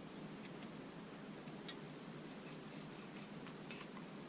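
Faint, light metallic ticks and scrapes of a feeler gauge being worked between a rocker arm and valve stem while the clearance is adjusted. A steady low background hum sits underneath.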